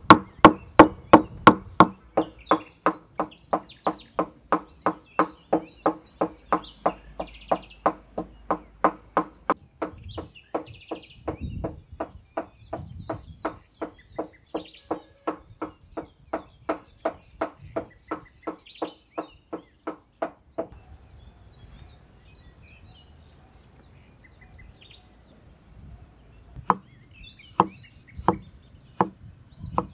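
A steel cleaver chops pork into mince on a wooden chopping block in a fast, even rhythm of about two and a half strikes a second, stopping about two-thirds of the way through. Near the end come slower, spaced cuts of the cleaver slicing carrot on the board. Birds chirp faintly in the background.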